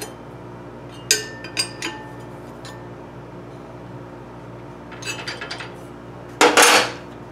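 Metal clinks of a wrench and hands on a steel indexing wheel and the lathe spindle: a few sharp ringing taps about a second in, lighter clinks around five seconds, then a louder scrape lasting about half a second near the end.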